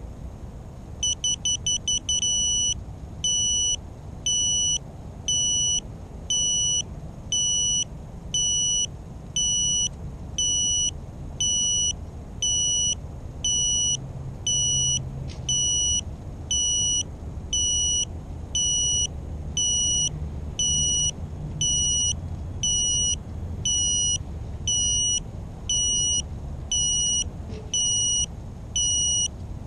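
A crashed FPV racing quadcopter's lost-model beeper sounding: a quick flurry of short beeps about a second in, then evenly repeated high beeps, about one and a half a second, to help find the downed quad in the grass. Low wind rumble on the microphone underneath.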